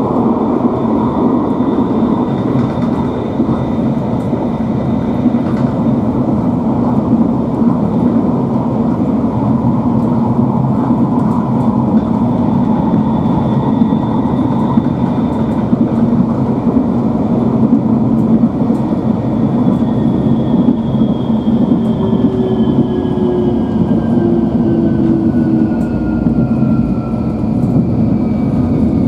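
Nottingham Express Transit tram running on its rails, heard on board: steady rolling noise under a high electric motor whine. Over the last several seconds the whine falls in pitch as the tram slows.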